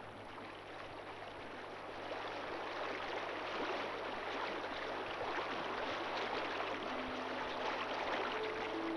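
Rushing water of a fast mountain river running over stones: a steady hiss that grows louder. Music comes back in faintly near the end.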